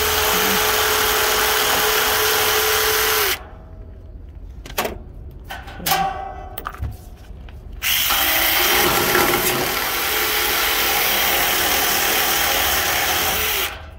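Power ratchet with a 12 mm socket backing out bolts, running in two steady bursts of motor whine. The first lasts about three seconds and the second about six seconds from just past the middle. A few sharp metallic clicks fall between them.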